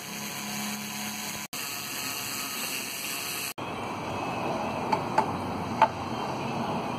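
Three light metal clinks in the second half, the aluminium cylinder knocking against the engine's steel studs as it is handled, over a steady hissing background noise.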